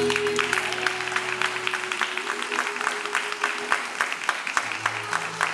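Audience applauding with many separate claps, while the song's final held note and backing music fade out beneath.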